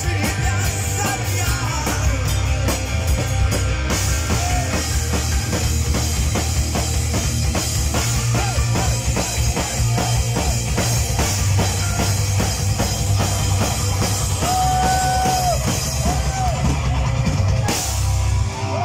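Live heavy metal band playing loud: pounding drum kit, distorted electric guitars and bass, with a singer's vocals. The song ends on a final crash and a ringing chord that cuts off just before the end.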